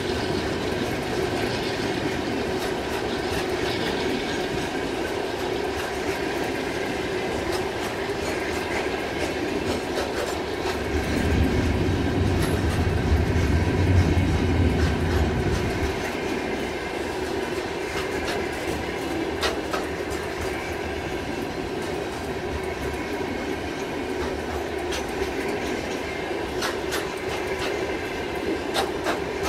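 Covered hopper wagons of a departing freight train rolling past: steady wheel-on-rail noise with clicks over the rail joints and a thin wheel squeal. A deeper rumble swells about eleven seconds in and eases off about five seconds later, and the joint clicks grow sharper in the second half.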